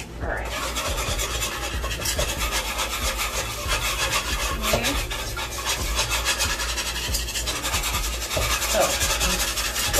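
A whisk scraping against the bottom of a pot in rapid, steady strokes, working flour into melted butter to cook a roux.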